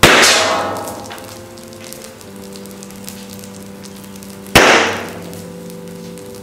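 Burning, melting plastic toy truck crackling and sizzling, with two sudden loud pops: one right at the start and one about four and a half seconds in, each fading away over about half a second.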